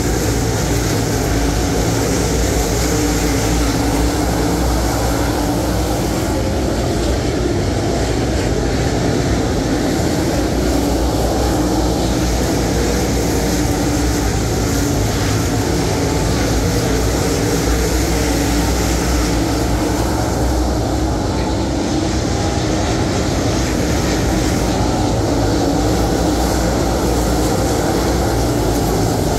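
A field of dirt late model race cars with V8 engines running hard around a dirt oval. Their engines merge into one steady, continuous drone as the pack circles the track.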